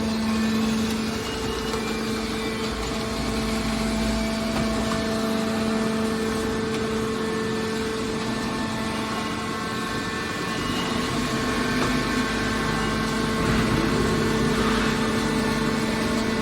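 Hydraulic baler's electric pump motor running with a steady hum, a little louder near the end.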